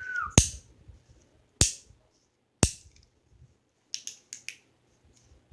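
Fidget toy being handled, giving three loud, sharp snaps about a second apart, then a quick run of lighter clicks.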